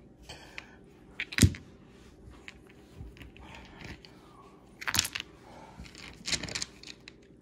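Fossils and rocks being moved and set down, knocking and clicking against each other in a few sharp strikes. The loudest comes about a second and a half in, with small clusters of clicks later.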